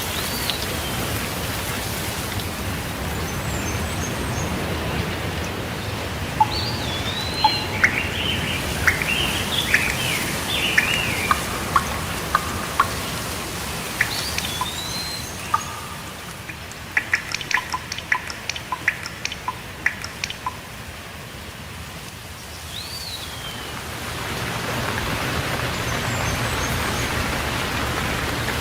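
Steady rainfall, easing for a while past the middle and growing heavier again near the end, with birds calling over it: arched whistled calls at intervals and bursts of quick chirps.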